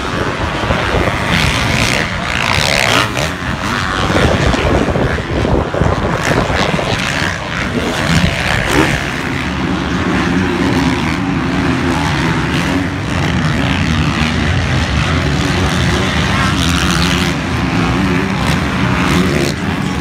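Motocross dirt bike engines revving hard on the track, pitch rising and falling as the bikes accelerate, shift and pass. About halfway through, a steadier low engine drone joins.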